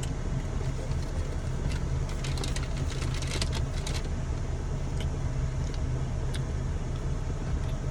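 Steady low rumble of a car heard from inside the cabin, with a run of short crackles from about two to four seconds in.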